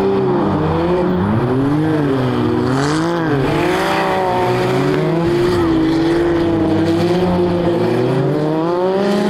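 Several side-by-side buggies racing on ice. Their engines overlap, repeatedly revving up and falling back as the drivers slide through the corners.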